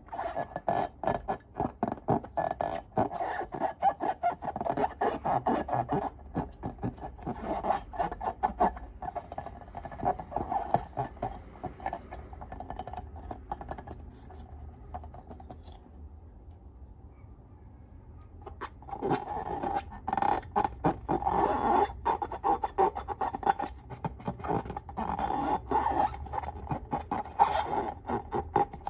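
Slime being squished and stirred, with dense sticky crackling and scraping that eases off for several seconds midway and then picks up again.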